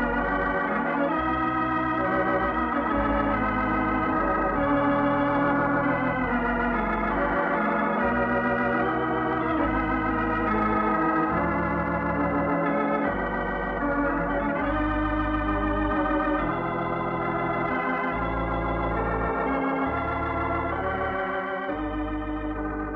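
Organ music: held chords shifting every second or two over deep bass notes, starting to fade near the end as the radio program's closing music.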